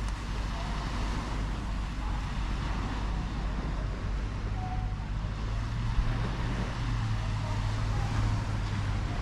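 Vehicle engine idling with a steady low hum while standing still, with a brief low thump about six seconds in.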